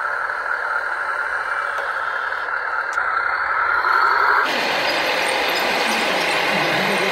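Radio-controlled model truck running, a steady high whine from its drive. About four and a half seconds in, the sound cuts abruptly to a louder, rougher machine noise.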